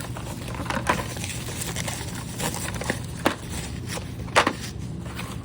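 Handling of carded Hot Wheels cars and their packaging: irregular clicks, taps and crinkles of plastic blister packs and card, over a steady low hum.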